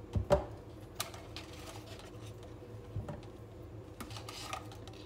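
Light knocks and clicks of sticky tape rolls being handled and lifted out of a thin plastic cup hanging on threads. The two loudest knocks come close together right at the start, with a few softer taps after.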